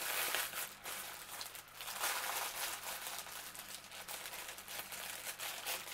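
Crinkling rustle of a plastic mailer bag being handled, a dense run of small crackles, strongest at the start and again about two seconds in.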